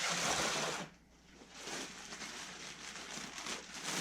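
Handling noise as a benchtop wire stripping machine is set up: a loud burst of rustling and scraping for about the first second, then quieter, uneven rustling.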